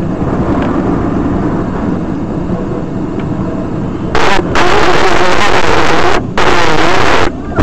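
Steady engine and road rumble heard from inside a moving vehicle's cab. About four seconds in, a loud harsh noise overloads the recording for about three seconds, dropping out briefly twice.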